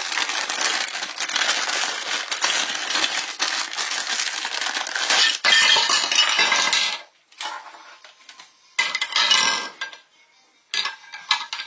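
Thin plastic toy wrapper crinkling loudly as it is pulled open, for about seven seconds, then three shorter rustles.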